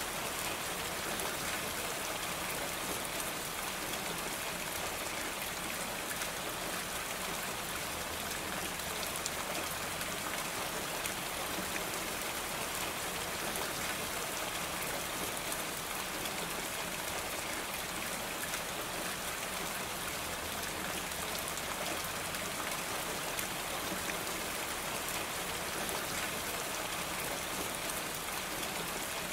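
Steady rain falling on a roof: an even hiss sprinkled with fine drop ticks.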